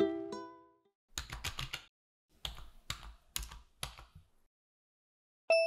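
Typing sound effect: rapid key clicks in short runs for about three seconds, then a single bright bell ding near the end, like a typewriter's carriage bell. Before that, the last plucked ukulele notes of the intro music die away.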